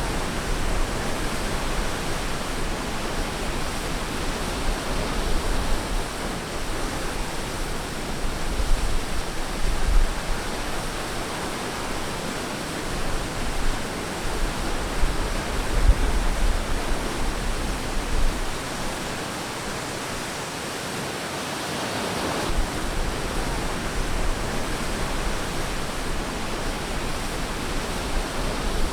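Ocean surf washing onto a beach, a steady rush of waves with a stronger surge about three-quarters of the way through.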